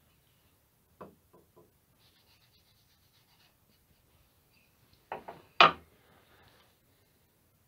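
Wooden moulding plane handled on a wooden workbench: a few light knocks about a second in, faint rubbing, then two sharp wooden knocks near the end, the second the loudest, as the plane is set down on the bench.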